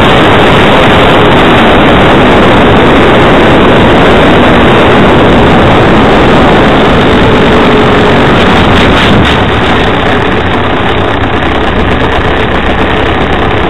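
Loud, distorted rushing noise on the small camera's microphone under a model plane's wing, easing slightly about ten seconds in, with a few clicks shortly before.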